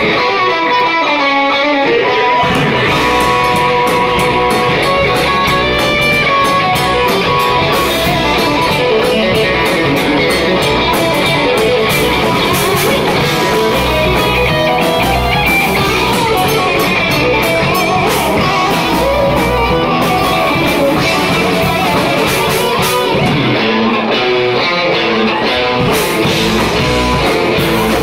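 A live heavy rock band playing: electric guitars, bass guitar and a drum kit, loud and dense. The bass and drums briefly drop out in the first couple of seconds and again about 24 seconds in.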